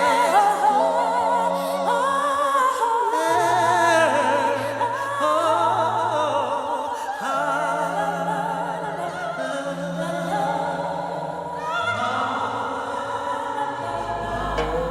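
Music with sung voices holding notes with vibrato over sustained low notes.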